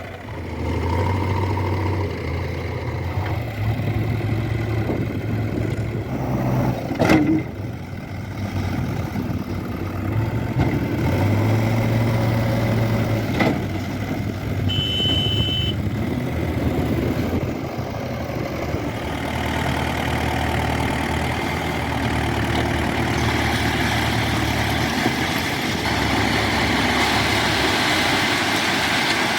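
Diesel engines of a backhoe loader and tractors running steadily at work. A sharp knock about seven seconds in, a short high beep around the middle, and a rise in noise over the last few seconds.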